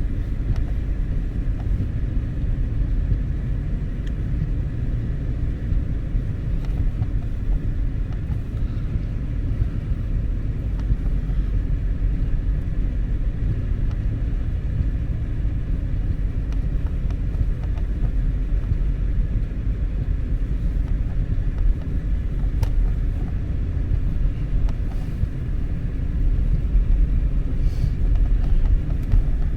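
Steady low rumble of road and engine noise inside the cabin of an all-wheel-drive car driving on a snowy road.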